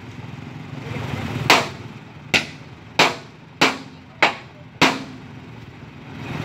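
Six sharp hammer blows on the metal of a stuck dump truck, about one every 0.6 seconds, over a truck's diesel engine running steadily.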